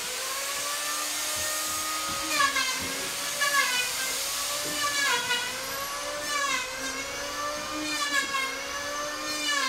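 Electric hand power tool with a high motor whine, cutting wood. Its pitch dips and recovers about once a second from about two seconds in, as the motor slows each time it bites into the wood.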